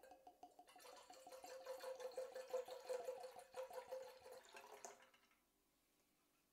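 Alcohol poured from a bottle into a stainless steel pitcher, glugging rapidly and evenly. The pour stops about five seconds in.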